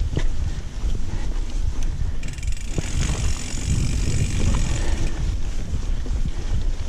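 Mountain bike riding fast down a rocky dirt trail, heard from a camera on the rider: wind buffets the microphone with a steady low rumble, and the bike knocks and rattles over bumps. A high hiss joins in about two seconds in and fades near the five-second mark.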